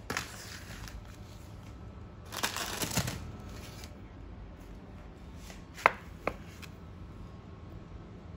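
Handling sounds: two spells of rustling and scraping, then two sharp clicks a little under half a second apart about six seconds in.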